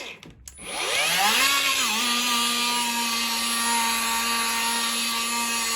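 Cordless polisher with a foam pad: its motor winds down, then spins up again with a rising whine and settles into a steady run, with a brief dip in pitch about two seconds in.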